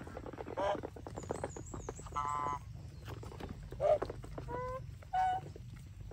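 Domestic geese and ducks calling: about five short, separate honking calls, over a busy patter of small clicks.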